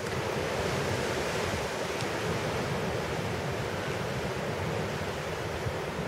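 Strong blustery wind howling in a steady rush, with wind buffeting the microphone.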